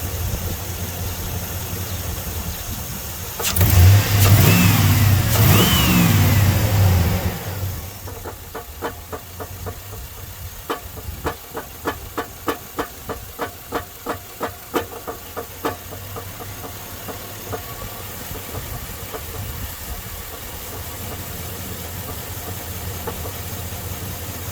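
2002 Chevy Silverado's 5.3 V8 running with a steady low hum. It gets much louder for about four seconds with two rises and falls in pitch, then a regular sharp knock comes through about twice a second for several seconds. The owner takes the knock for a sign of a busted crank, a broken flywheel or flexplate, or loose torque converter bolts.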